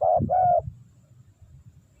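Spotted dove cooing: two quick, loud coos in the first second, ending its phrase.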